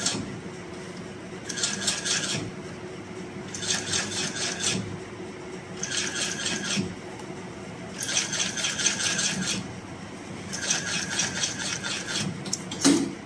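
HighTex 169 two-thread lockstitch side-wall sewing machine stitching a shoe's side seam in short runs: five quick bursts of rapid needle strokes, each about a second long, with pauses in between. There is a single louder knock near the end.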